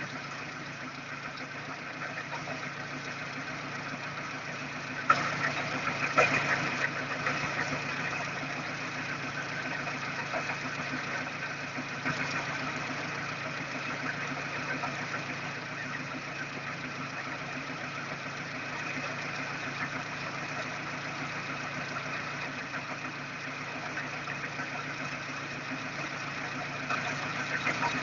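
Daewoo Espero 2.0-litre four-cylinder petrol engine running at idle with an extraneous knock in its running, heard as an irregular, strange idle. A couple of louder knocks stand out about five and six seconds in.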